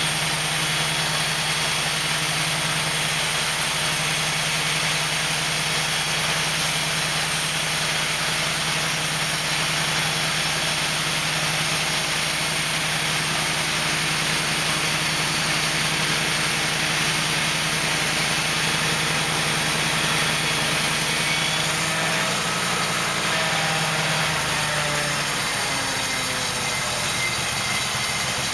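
Wood-Mizer portable bandsaw mill running, its engine holding a steady note under a dense hiss from the band blade. About 22 seconds in the pitch slides down and the engine's low note drops away a few seconds later, as the mill slows.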